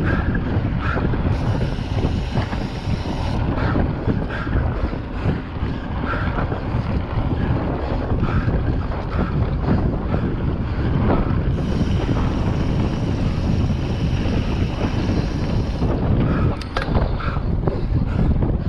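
Wind buffeting the on-board camera's microphone as a mountain bike is ridden along a dirt trail, over a constant rumble with frequent short rattles and knocks from the bike.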